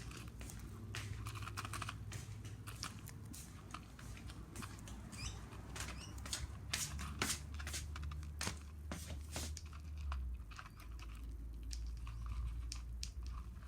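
A bird pecking and picking at food in a pan: irregular sharp clicks and taps of its beak, over a low steady hum.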